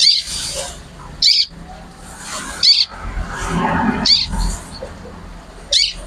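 Caged bar-winged prinia (ciblek) calling: five short, sharp, high notes, one about every second and a half.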